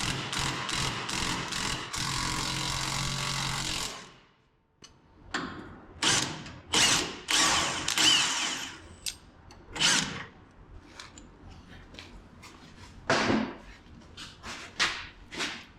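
Power tool on a 3/4-inch socket loosening the front shock's nut: pulsing at first, then running steadily until it stops about four seconds in. After that, scattered metal clinks and knocks of tools and parts.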